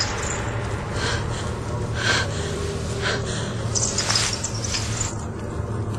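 A man breathing heavily, a few audible breaths about a second apart, over a low steady hum.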